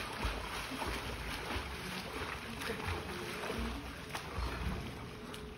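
A swimmer's strokes splashing faintly in a pool, under irregular gusts of wind rumbling on the microphone.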